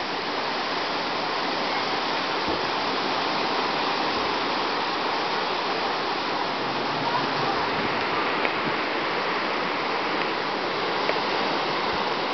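Strong hurricane wind making a steady rushing noise, with no clear letup through the gusts.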